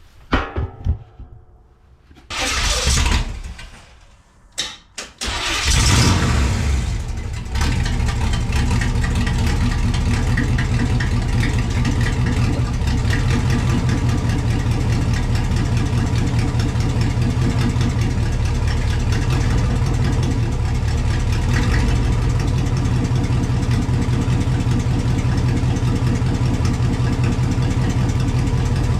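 Third-gen Camaro's carbureted engine starting about five seconds in after a few short bursts, running a little louder for a couple of seconds, then settling into a steady idle.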